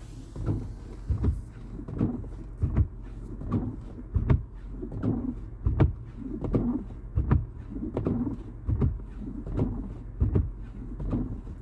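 A steady series of low thumps, roughly one and a half a second, over a low rumble.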